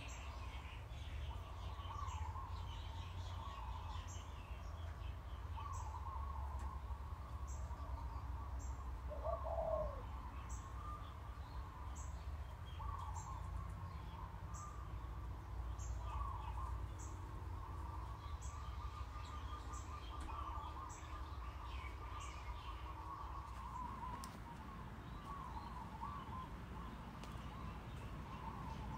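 Songbirds chirping steadily, with one lower call about a third of the way through, over a faint steady low hum.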